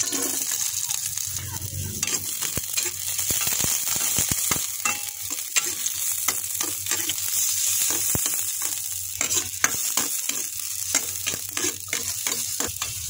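Sliced ginger, garlic and onion sizzling in hot oil in a metal pot, with a cooking utensil scraping and clicking against the pot as they are stirred. The aromatics are being sautéed until lightly browned.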